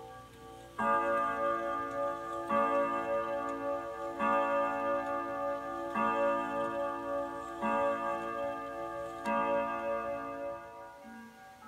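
Jauch grandfather clock movement striking its chime rods with its hammers: six ringing strokes about 1.7 s apart, each left to ring on into the next, as in the count of the hour.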